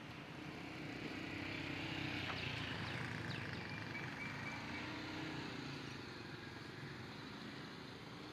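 Street traffic: motor vehicles passing on the road, one pass swelling louder in the first few seconds and then fading.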